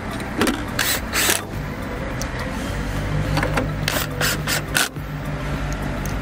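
DeWalt cordless drill-driver working screws on the front of a moulded-case circuit breaker, with a series of sharp clicks and scrapes from the bit and metal parts.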